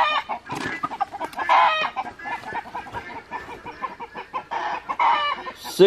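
Cornish Cross meat chicken giving repeated short clucking calls while it is held and weighed, some louder ones about a second and a half in and near the end.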